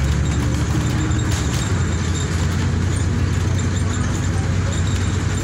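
Bus engine and road noise heard from inside a moving city bus: a steady low rumble with a hiss of tyres and cabin noise.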